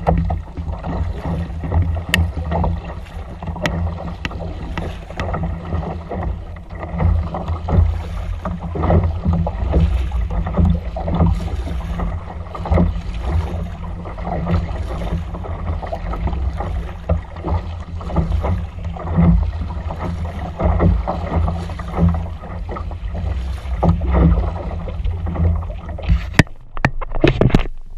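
Kayak being paddled: water sloshing and splashing with paddle strokes about once a second, over a steady low rumble of wind buffeting the microphone. Near the end the sound briefly cuts in and out.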